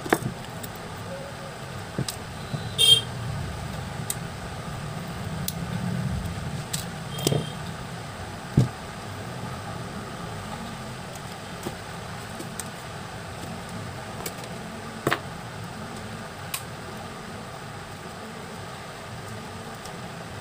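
Steady low rumble of road traffic with a short horn toot about three seconds in, and scattered sharp clicks of metal tweezers and a phone being handled on a workbench.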